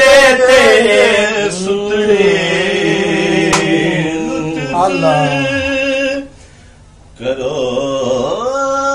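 A male voice singing a Punjabi Sufi kalam in long, held, wavering notes. The sound drops out briefly about six seconds in, then the singing resumes.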